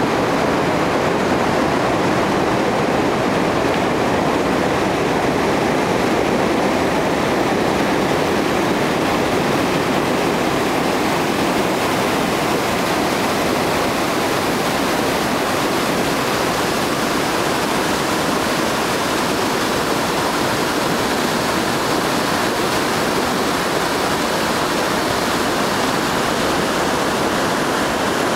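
River rapids running high: a steady, loud rush of white water over rocks.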